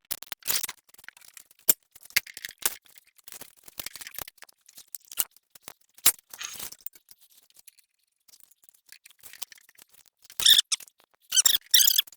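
Scattered clicks, light knocks and scraping from handling tools and steel at a workbench, with a few sharper squeaky scrapes near the end.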